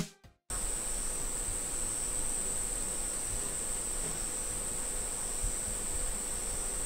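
Insects chirring in a steady, high-pitched chorus that starts suddenly about half a second in.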